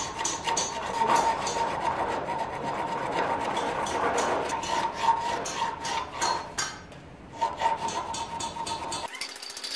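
A flat hand file scraping back and forth across a rusty steel hatchet head clamped in a vise, in repeated strokes with a ringing metallic note under them. The filing lets up briefly about seven seconds in, then resumes.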